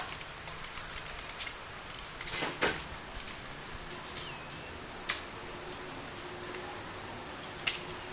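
JG M5-S6 airsoft electric gun firing on full auto: a quick run of faint clicks for about a second and a half. A couple of louder knocks follow, then two single sharp clicks later on.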